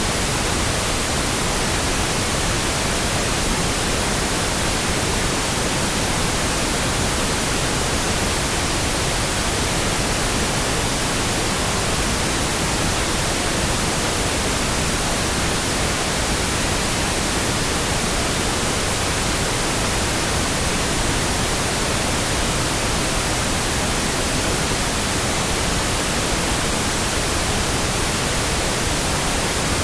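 Steady pink-noise sleep track: an even, unchanging hiss that carries across the whole range, strongest in the treble.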